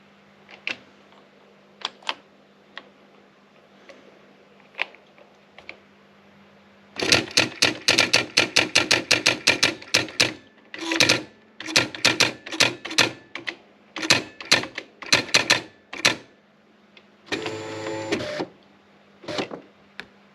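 Erika 3004 electronic typewriter printing: a few scattered strikes, then a fast run of clattering strikes in short bursts for about nine seconds. Near the end comes a brief motor whir, followed by two more strikes.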